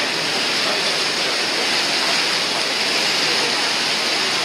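Steady rush of wind and water passing a moving cruise boat, an even, unbroken noise.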